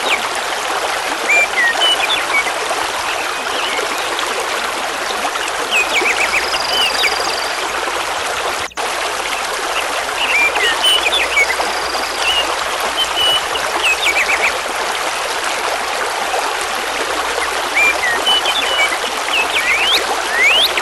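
Mountain river rushing over large stones, a steady hiss of water, with small birds chirping in short phrases every few seconds above it. The sound cuts out for an instant about nine seconds in.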